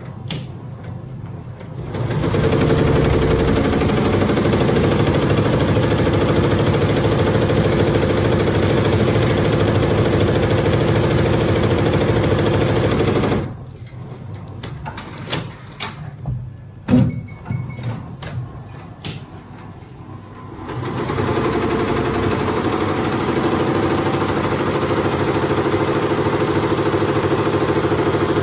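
Tajima multi-head computerized embroidery machine stitching at speed, a steady rapid needle clatter. It stops about 13 seconds in, leaving several seconds of scattered clicks and knocks, then starts stitching again about 21 seconds in.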